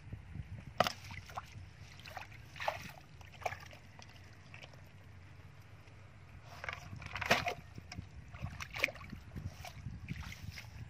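Sloshing and splashing of feet and hands wading in shallow muddy water, in irregular separate splashes over a low steady rumble; the loudest comes about a second in and another cluster around seven seconds in.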